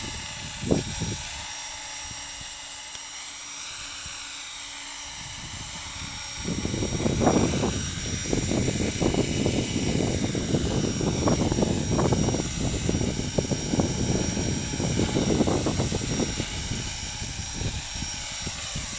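Radio-controlled Thunder Tiger Innovator MD-530 model helicopter running just above the ground, its rotor and motor whine wavering up and down in pitch. From about six seconds in, a loud gusting rumble of wind buffeting the microphone covers the low end, with a short knock about a second in.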